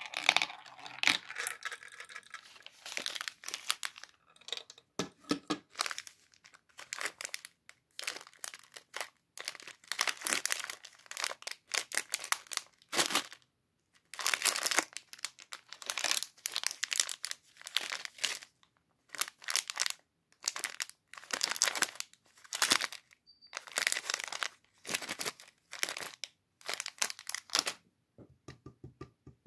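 Plastic sweet wrappers crinkling and tearing in many short, irregular bursts as packaging is handled and opened.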